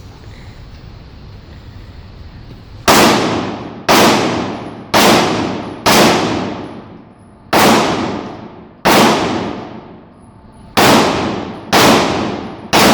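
Pistol shots from a CZ Shadow 2: nine single shots about a second apart, starting about three seconds in, each followed by a fading echo.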